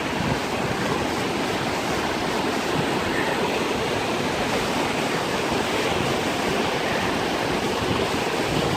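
Waterfall rushing with a steady, unbroken noise of falling water.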